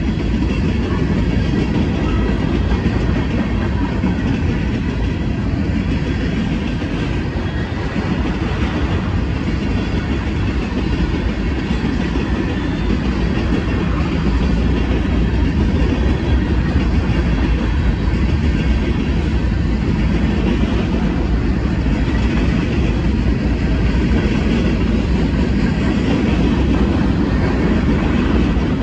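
Freight train cars (tank cars, boxcars and centerbeam flatcars) rolling past: loud, steady noise of steel wheels running on the rails.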